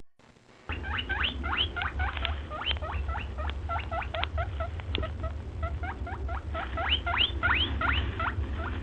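Small birds chirping together, many short quick squeaky notes rising in pitch and overlapping, over a steady low hum. The chirping starts less than a second in, after the music cuts off.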